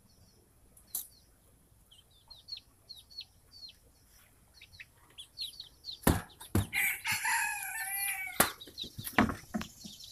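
Young chickens peeping in short, falling chirps; about six seconds in, a loud burst of wing flapping and knocks as the birds jump out, with a drawn-out wavering squawk among them.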